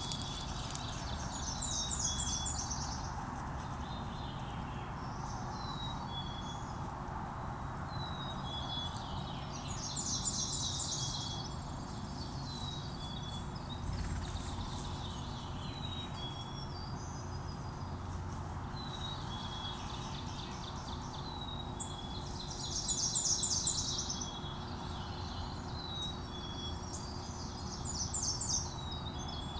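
Songbirds singing in a forest: several quick, high song phrases repeated every few seconds, with shorter chirps between them, over a steady hiss.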